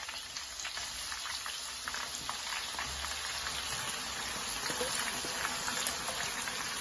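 Sliced onions frying in hot oil in a wok: a steady crackling sizzle with many small pops as more onions are tipped in.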